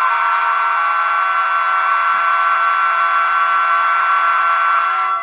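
Two-tone ÖBB Taurus locomotive horn, a simulator recording looped on a LokSound decoder, sounding continuously from an H0 model locomotive's small loudspeaker as its emergency-brake function is triggered. It holds one steady chord and cuts off suddenly about five seconds in.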